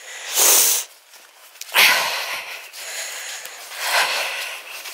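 A hiker breathing hard close to the microphone: three loud breaths, about half a second in, around two seconds in and near four seconds, over a faint hiss.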